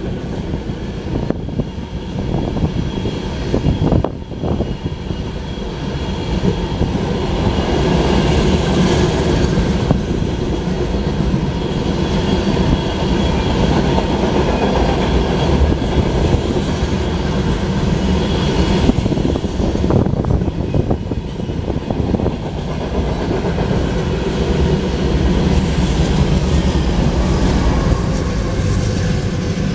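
A loaded sand train of covered hopper cars rolls past close by, its steel wheels rumbling and clacking over the rails in a steady, loud stream. Near the end, the train's rear GE Dash 9-44CW diesel locomotives go by.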